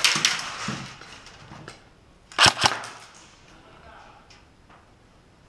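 Airsoft guns firing single shots. The loudest is a pair of sharp cracks about two and a half seconds in, with a few fainter shots later.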